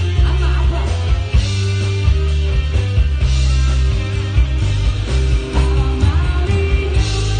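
Rock band playing live: a male singer over electric guitar, bass guitar, drums and keyboard.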